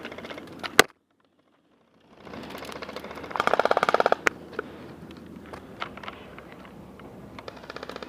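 Airsoft guns firing in a firefight: scattered single shots, one loud crack just under a second in, then a rapid full-auto burst of about a dozen shots around three and a half seconds in, and another quick string near the end. The sound cuts out completely for about a second after the loud crack.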